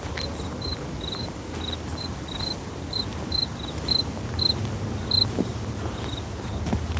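A cricket chirping: short, high chirps about twice a second that die away about five seconds in, over a low rumble.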